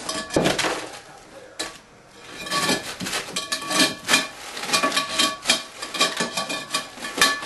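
Metal spoon stirring and knocking around a ceramic bowl, with quick repeated clinks and scrapes against the sides. There is a burst of clatter at the start, a brief lull, then steady fast stirring from about two and a half seconds in.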